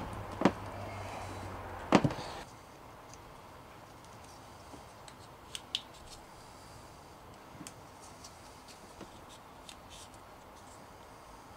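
Two sharp clicks in the first couple of seconds, then faint scattered ticks and rustles. These are small metal cable lugs and wires being handled and fitted by hand.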